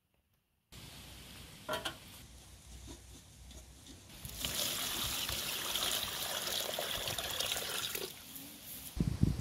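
Water poured from a plastic basin into a large aluminium pot lined with a cloth: a steady splashing pour lasting about four seconds that stops sharply. Before it there is some brief handling, and a few dull knocks come near the end.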